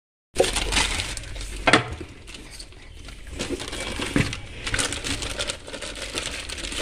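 Plastic wrapping crinkling and rustling as plastic-wrapped hotbox containers are handled and lifted out of a cardboard box, with sharp knocks about two and four seconds in. It starts abruptly just after the start.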